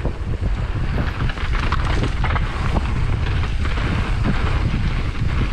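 Wind rushing over the microphone of a mountain biker riding at speed, a steady low rumble with scattered short knocks and rattles from the bike over rough ground.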